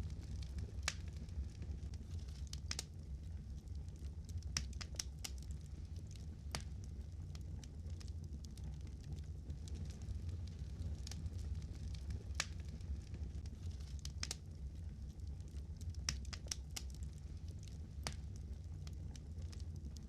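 Wood fire crackling: sharp irregular pops and snaps, some in quick little clusters, over a steady low rumble.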